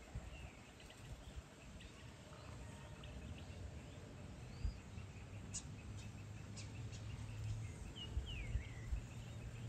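Evening outdoor ambience: scattered faint bird calls and chirps, with a short run of quick high chirps a little past the middle, over a low steady hum.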